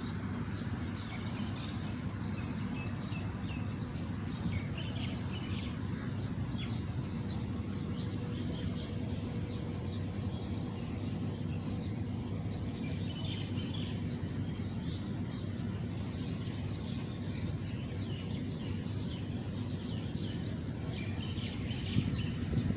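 Many small birds chirping, with short high calls repeating throughout, over a steady low background noise.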